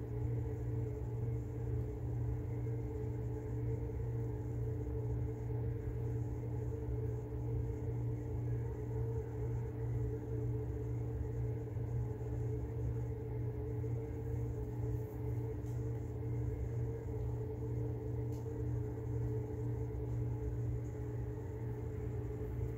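A steady low hum with a couple of faint steady tones above it, unchanging in level.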